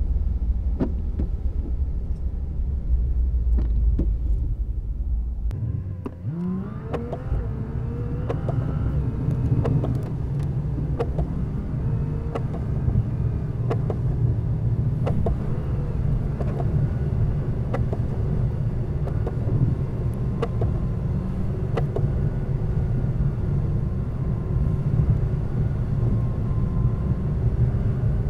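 Car engine and road noise heard from inside the cabin while driving. About six seconds in the sound dips briefly, then the engine note rises as the car accelerates and settles into a steady run, with scattered sharp ticks throughout.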